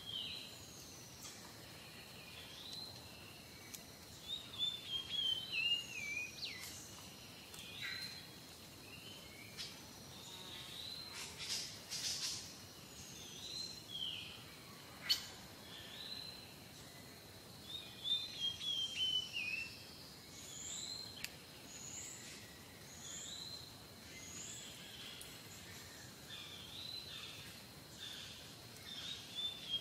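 Small songbirds chirping and calling, with quick descending runs of chirps about four seconds in and again about eighteen seconds in, over a steady background hiss.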